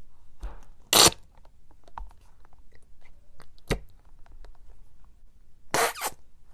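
Slime being squished by hand: scattered small crackling clicks, with louder pops about a second in, just before four seconds, and a double pop near the end.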